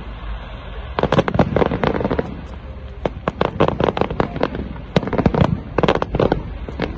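Aerial fireworks display: shells bursting in rapid volleys of sharp bangs and crackles, three dense clusters about two seconds apart with short lulls between.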